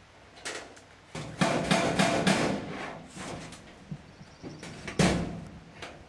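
Knocks and bangs on corrugated steel quonset arch panels as they are handled and fitted: a burst of clattering about a second and a half in and one loud bang about five seconds in.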